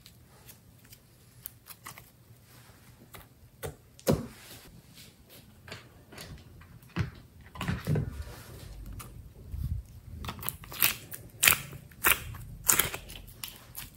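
Hands working soft slime: a few faint sticky clicks at first, then from about four seconds in a run of wet pops and sharp clicks. These are loudest near the end, as fingers dig slime out of a rainbow slime palette tray.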